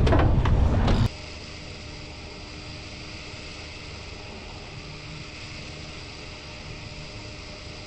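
Loud rumble and buffeting of a boat under way that cuts off abruptly about a second in, leaving a steady faint hiss with a light hum.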